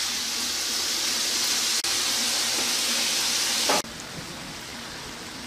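Morel mushrooms frying in butter in a pan, a steady sizzle as they simmer in the liquid they have given off. The sizzle drops suddenly to a quieter level a little under four seconds in.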